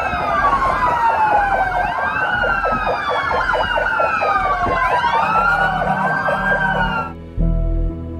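Several emergency-vehicle sirens wailing at once, their rising and falling sweeps overlapping and repeating every couple of seconds. They cut off abruptly about seven seconds in, giving way to music with a low pulsing beat.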